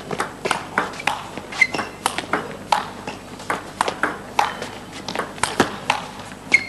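Table tennis rally: the celluloid ball clicking sharply off the rackets and the table in quick, irregular alternation, about two to three hits a second.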